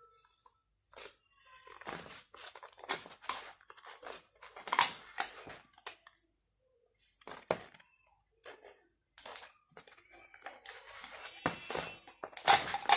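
Plastic support spiral being unwound and pulled out of a silicone cold shrink tube, in irregular crackling, rustling bursts with a short pause a little past the middle.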